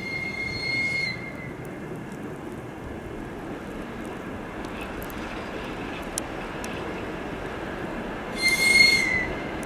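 High-pitched whistle of a VL11.8 DC electric locomotive, sounded twice for about a second each: once at the start and again, louder, near the end, the second blast sagging in pitch as it cuts off. Between and under the blasts runs the steady rumble of the approaching freight train.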